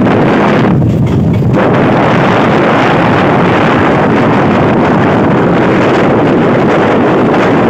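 Wind rushing over the microphone, which is held out of a moving electric multiple unit (EMU) local train, mixed with the train's running noise on the track. It is a loud, steady rush that fills out about one and a half seconds in.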